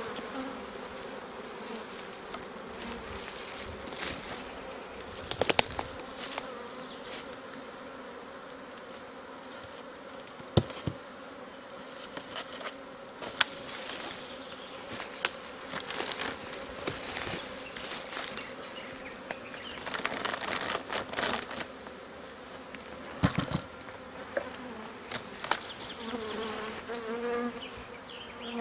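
Honeybees from an opened hive buzzing in a steady hum, with a few sharp knocks and scrapes of wooden hive boxes and frames being handled.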